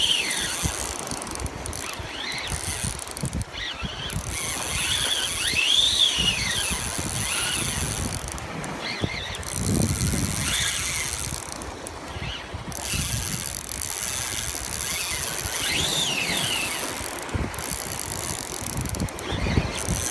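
Shimano Stella SW spinning reel's drag whining as a hooked fish pulls line off against it, in several rising-and-falling surges.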